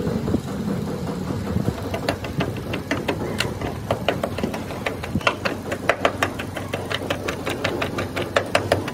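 Repeated hammer blows on metal, starting about two seconds in and running at several strikes a second, each with a brief metallic ring. They become louder and more regular near the end, over a steady low background hum.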